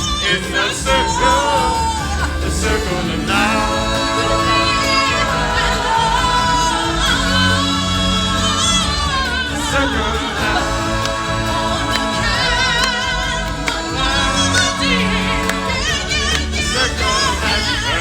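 Live stage-show music: a choir and soloists singing over a band, with voices holding wavering notes.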